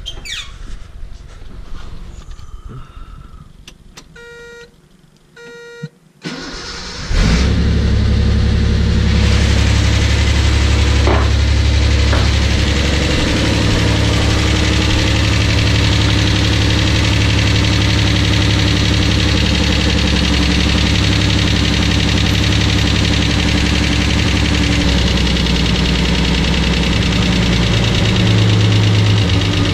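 Two short beeps, then the Datsun 280Z's rebuilt 2.8-litre straight-six is cranked briefly by the starter and catches about seven seconds in. It then idles steadily, with a couple of slight shifts in pitch as the idle is set toward 800 rpm.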